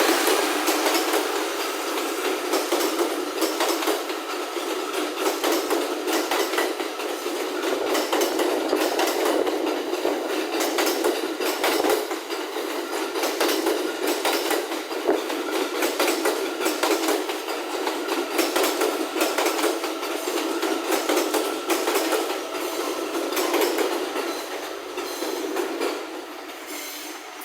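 A train passing close by, its wheels clattering rapidly over the rail joints, loudest at the start and fading over the last few seconds as it moves away.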